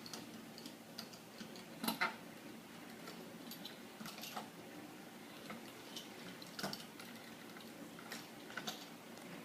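Scattered light clicks and taps, a second or two apart, from a window screen spline tool pressing new spline into the screen frame's channel.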